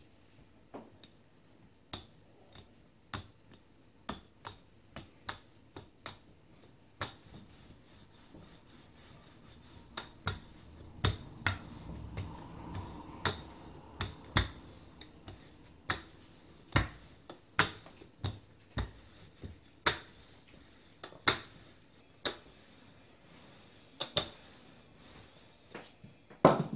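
Wooden rolling pin rolling out a block of laminated croissant dough on a floured worktop: sharp, irregular clicks and knocks, about one or two a second, with a soft low rolling sound in the middle and the loudest knock near the end.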